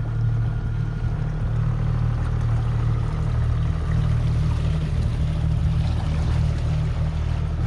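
Outboard motor of a small open motorboat running steadily underway, a constant low drone with the hiss of water and air beneath it.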